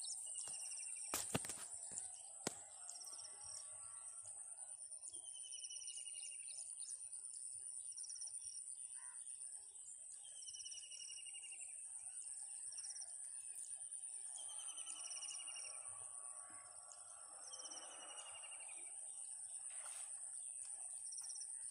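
Outdoor ambience of birds and insects: one bird repeats a short falling call every four to five seconds, with higher short chirps in between, over a steady high-pitched insect buzz. A few sharp clicks in the first few seconds.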